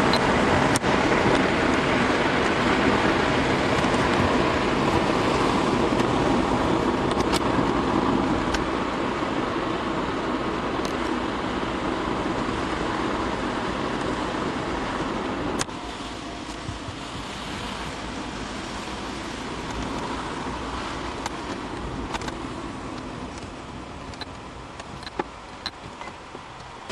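Car running on the road, engine and tyre noise heard from inside the cabin, growing quieter as the car slows behind traffic, with a sudden drop about sixteen seconds in. A few short clicks near the end.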